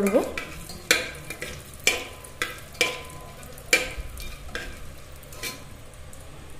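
Whole spices and peppercorns sizzling in melted butter in a pressure cooker as a spatula stirs them, knocking and scraping against the pot about every half second. The knocks stop about five and a half seconds in, leaving only a faint steady sizzle.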